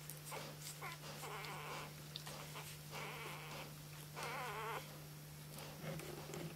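Three-day-old flat-coated retriever puppies squealing while nursing: three short wavering, high whines about a second apart, over small clicking sounds.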